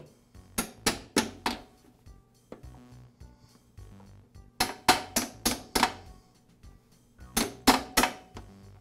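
Small hammer tapping a lawn mower's side-deflector hinge pin through the bracket and torsion spring: three runs of four or five quick, sharp taps, about three a second.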